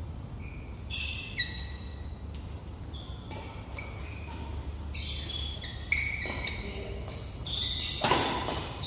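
Badminton rally on an indoor court: sneakers squeak sharply on the court floor as the players move, with a few sharp racket-on-shuttlecock hits. A louder rush of noise comes near the end as a player lunges for a shot.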